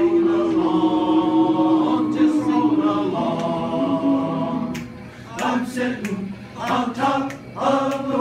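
Men's barbershop chorus singing a cappella in close harmony: one chord held for about the first three seconds, then shorter sung phrases with brief breaks between them.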